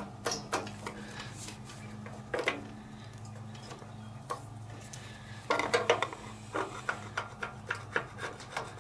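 A hand tool scraping old gasket material off the carburetor mounting flange of a Kohler CV15S engine, cleaning it to a smooth surface for the new gasket. Short scraping strokes come now and then, a quick burst of them a little past halfway, then a steady run of strokes one or two a second.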